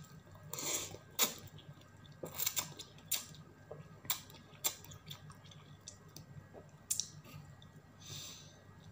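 Person slurping and chewing instant noodles: a hissy slurp under a second in, then a run of sharp wet mouth clicks and smacks, and a short breathy slurp near the end. A low steady hum sits underneath.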